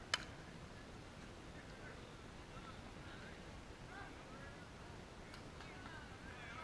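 A single sharp crack of an impact a split second in, over faint, scattered short calls or distant voices.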